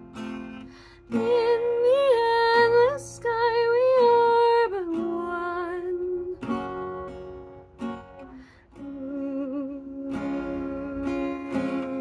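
Capoed steel-string acoustic guitar strummed with a pick, with a woman singing over it. She holds long notes with vibrato from about a second in, drops out briefly past the middle, then sings on.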